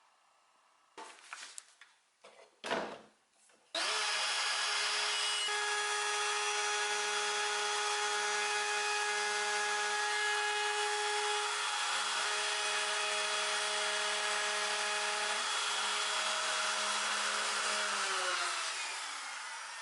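A few knocks and handling sounds, then an electric power tool switches on about four seconds in and runs steadily against wood with a motor whine. Near the end its pitch falls as it winds down.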